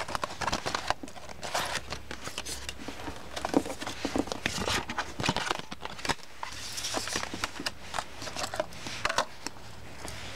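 Clear plastic packaging crinkling and rustling in the hands, with irregular small clicks and taps, as a small plastic tape measure is unwrapped.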